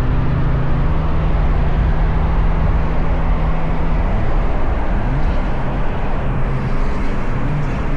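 Car engine running steadily under loud rushing road and wind noise, its note shifting about four to five seconds in.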